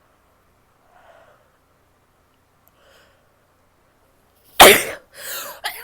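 A woman sneezing while sick, in a quick run of sneezes that starts suddenly about four and a half seconds in, after faint breathing. The first sneeze is the loudest.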